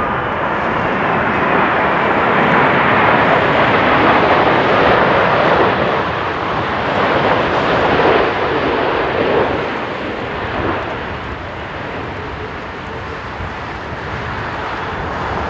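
Turbofan jet noise of an ANA Boeing 787-8 Dreamliner passing low on final approach, a steady rushing roar that swells over the first few seconds and eases off in the second half.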